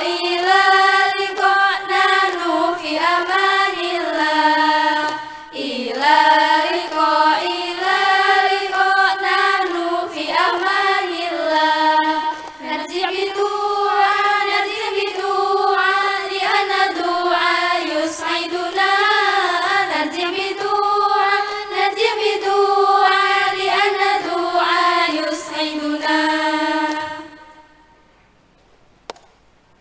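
Choir of young women singing one melody together, amplified through stage microphones. The singing stops near the end, leaving a short quiet gap.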